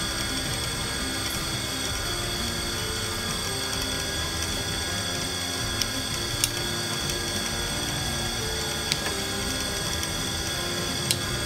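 Bench drill press running steadily with a constant high whine as its bit drills holes through a thin sheath panel into a wooden backing block. There are a few sharp clicks, about four over the last half of the sound.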